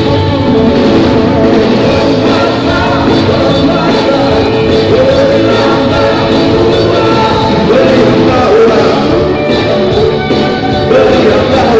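A live pop-rock band playing through a PA, with electric guitar, bass guitar, keyboard and drums under a sung lead vocal.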